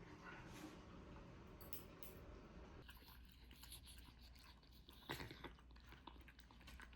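Near silence: faint room tone with scattered soft clicks, one a little louder about five seconds in.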